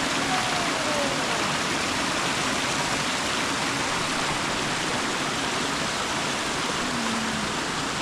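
Water of a waterfall and creek rushing steadily over rocks.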